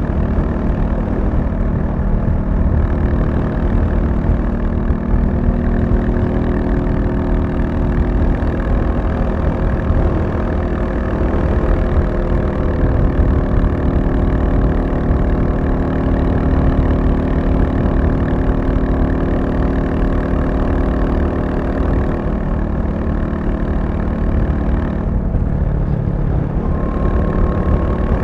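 Royal Enfield Classic 350's single-cylinder engine running steadily, with a low thumping rumble and a steady note. The note changes about three-quarters of the way through, as the throttle or gear changes.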